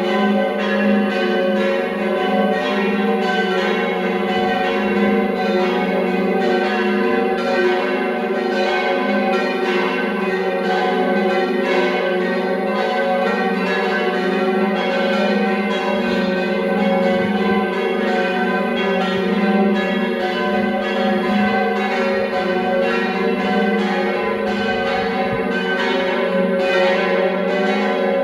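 Church bells ringing the noon peal, several bells struck in quick succession so that their tones overlap into one continuous, loud ringing.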